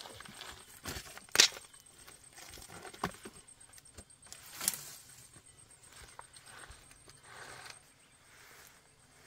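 Scattered knocks and rustling, with one sharp knock about a second and a half in as the loudest, and two more near three and five seconds in.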